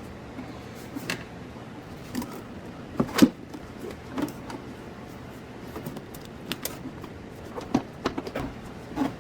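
Scattered knocks and clicks of intake parts being handled as a coupler is fitted onto the cold air intake piping, the loudest a double knock about three seconds in.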